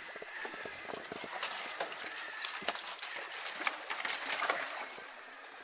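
Dry branches and twigs cracking and rustling as a person scrambles through a tangle of dead wood, a run of many irregular sharp clicks and snaps.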